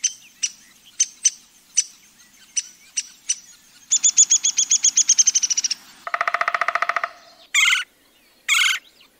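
Black woodpecker calling: scattered single sharp call notes, then a fast run of about fifteen high notes, a quicker rattling trill, and two short harsh calls near the end.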